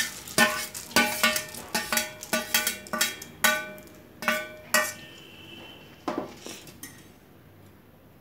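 Stainless-steel bowls clinking and tapping against a large steel plate as peanuts, roasted chana dal and dry coconut are emptied onto fried corn flakes: a quick run of ringing metal clinks for about five seconds, then quieter, with one more knock about six seconds in.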